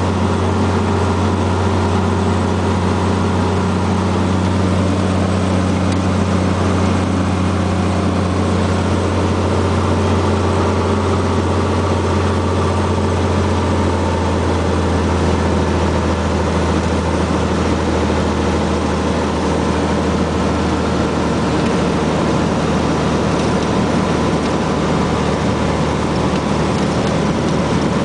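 Cessna 182T's six-cylinder Lycoming IO-540 engine and propeller droning steadily in cruise on approach, heard inside the cabin. Its low hum shifts slightly about halfway through.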